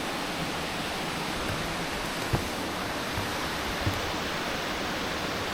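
Mountain stream rushing steadily over rocks, an even hiss of fast-falling water, with a couple of brief low bumps partway through.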